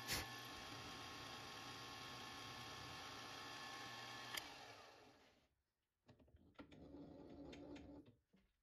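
Milling machine running with a small end mill cutting brass: a steady hum with a faint whine. About four seconds in there is a click and the sound dies away over about a second, then faint clicks and a low hum follow.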